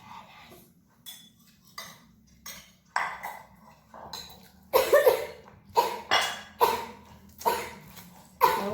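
A person coughing over and over, roughly one cough a second, starting about halfway in: a coughing fit brought on by very spicy Samyang fire noodles. Before it, a few light clinks of a spoon or chopsticks on a bowl.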